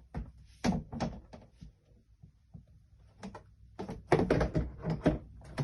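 Plastic bonnet of a Litter-Robot 4 clicking and knocking against the unit as it is worked into place: a few scattered clicks, then a run of louder knocks about four seconds in.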